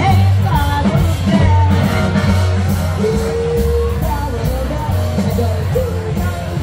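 Live big band playing a swing number, with a singing voice over the band and a long held note near the middle.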